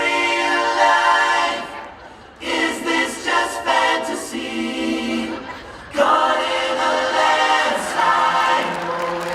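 Music: a choir of voices singing without bass or drums, with a brief pause about two seconds in.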